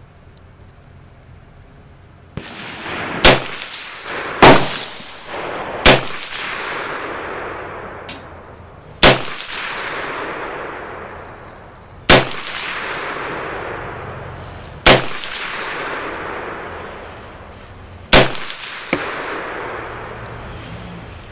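M1 Carbine (.30 Carbine, semi-automatic) firing about seven aimed single shots a second or more apart, each a sharp crack followed by a long echoing decay.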